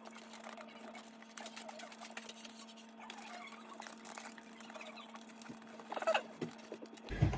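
RG58 coax cable being wound by hand around a ribbed plastic bottle. It gives a faint run of light scratches and clicks as the cable rubs and catches on the ribs, a little louder about six seconds in, over a steady low hum.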